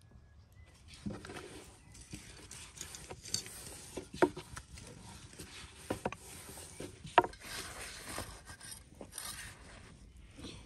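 Thin wooden rolling pin rolling out lavash dough on a wooden board: a steady rubbing swish with sharp knocks of the pin against the board, the loudest about four and seven seconds in.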